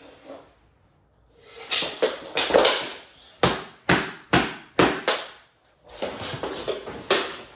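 Mini hockey sticks clacking against the ball and the hard floor during play, a run of sharp clacks about two a second starting a second and a half in, with scuffing of knees and sticks on the floor between them.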